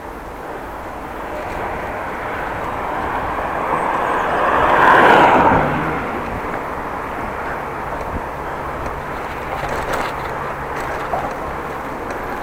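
A motor vehicle passing close by, its noise swelling to a peak about five seconds in and then falling away, over the steady rush of a moving bicycle ride.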